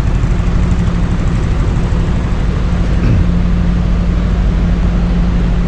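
Steady low hum of a running generator engine, over a constant rushing noise of falling water.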